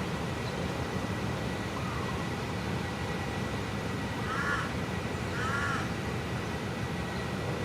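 Two crow caws, about a second apart, over a steady low rumble and a thin, steady high whine.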